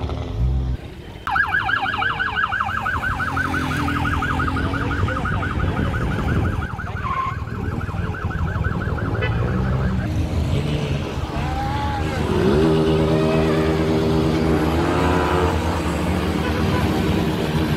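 Police car siren on a fast yelp, a quick repeating up-and-down wail, starting about a second in and cutting off about ten seconds in, over a steady low rumble of traffic.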